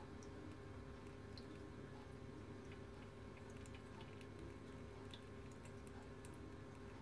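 Jebao RW8 wavemaker running in a reef aquarium, with the CP40 cross-flow pump switched off: a faint steady low hum, dotted with small scattered ticks and drips of water.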